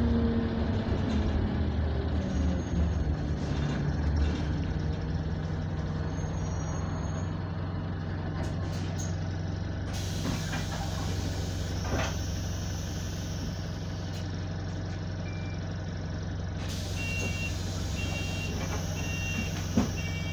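Diesel bus engine heard from inside the saloon, falling in pitch as the bus slows over the first few seconds, then idling steadily. Air hisses about halfway through and again near the end, followed by a short high beep repeated about five times.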